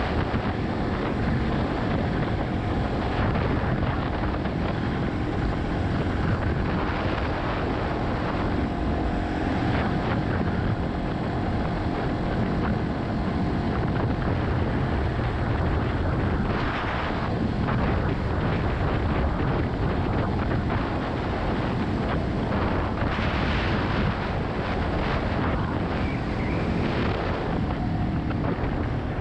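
Yamaha XT250's air-cooled single-cylinder engine running steadily while riding, with wind noise over the microphone.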